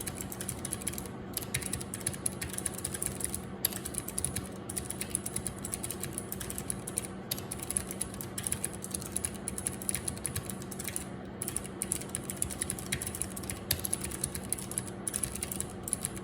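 Mechanical keyboard with clicky Cherry MX Blue switches being typed on, an irregular run of sharp key clicks with brief pauses. A steady hum of computer fans runs underneath.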